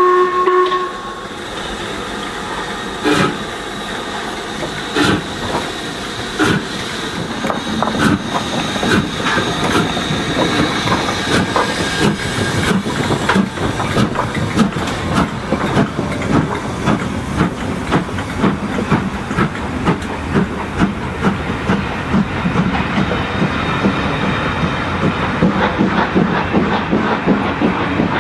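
Black Five steam locomotive (LMS Stanier Class 5 4-6-0, two-cylinder) starting away: a short whistle ends about a second in, then single exhaust beats a second or two apart that quicken steadily into a fast, continuous chuff as the train picks up speed, with hiss and wheel noise on the rails.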